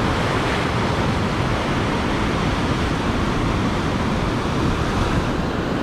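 Surf washing over rocks, mixed with wind buffeting the microphone: a steady, even rush with no distinct breaks.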